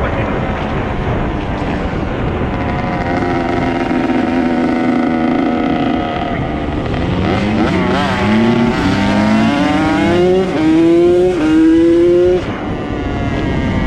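Dirt bike engine running at a steady pace, then accelerating hard through the gears. The pitch climbs and drops back about four times as it shifts up, and the throttle is shut off suddenly near the end.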